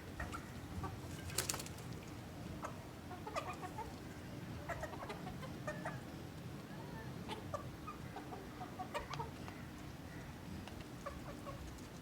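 Ko Shamo chickens making short, scattered clucks and calls, with a few sharp clicks in between, the loudest about a second and a half in.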